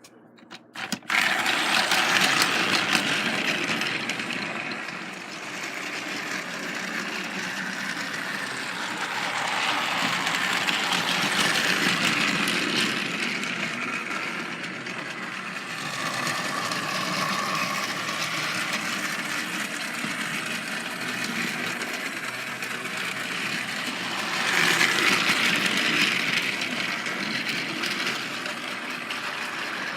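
Battery-powered Trackmaster toy train engine running on plastic track and pulling a line of coaches: a steady whirring and rattling of its small motor and wheels that starts about a second in and swells and fades by turns as the train passes closer and moves away.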